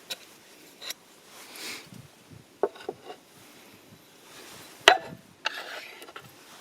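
Handling noises: scattered light knocks and clicks with short rubbing scrapes, and one sharp knock about five seconds in.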